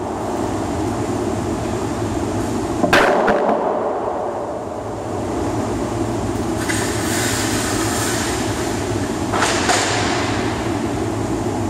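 Steady machinery rumble of a large steel fabrication shop, with a loud metallic clank about three seconds in and another near the end, and a hiss lasting a couple of seconds in the middle.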